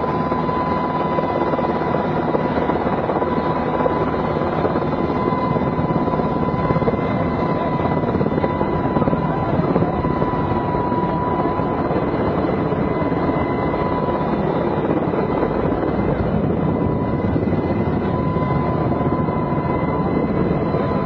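Helicopter engine and rotor noise heard from aboard, running steadily, with a constant high whine over the dense noise.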